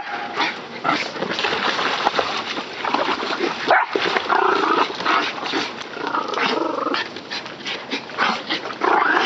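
Small dogs whining and yipping in several bursts, over water splashing in a small inflatable pool as a dog swims.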